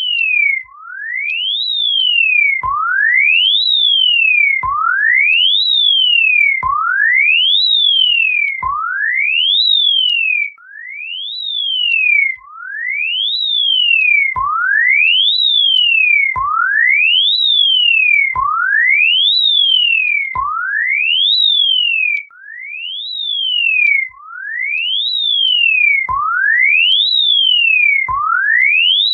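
Emergency alert system test tone: a single pure electronic tone that sweeps up for about a second, then drops back partway, repeating about every two seconds like a siren. Many of the rises begin with a sharp click.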